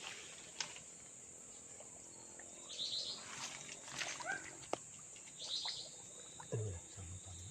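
Outdoor swamp ambience: a steady high insect hum, with two short chirping bird calls, a few light clicks, and a brief low voice sound near the end.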